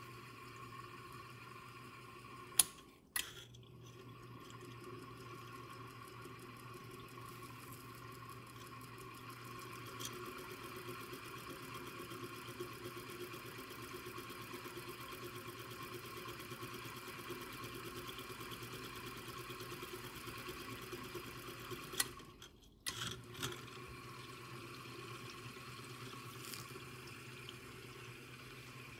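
Watch-cleaning machine running, its small motor humming steadily while the basket of watch parts spins in the cleaning solution with a light liquid swish. Two sharp clicks, each followed by a short break in the hum, come a few seconds in and again about three-quarters of the way through.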